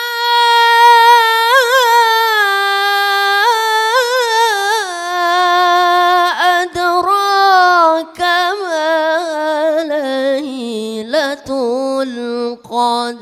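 A boy reciting the Quran into a microphone in melodic tilawah style. One long melismatic phrase of held, wavering notes sinks slowly from a high pitch to a lower one, broken briefly twice near the middle.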